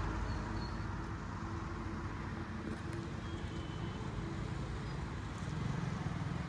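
Steady low rumble of motor vehicles, swelling slightly near the end.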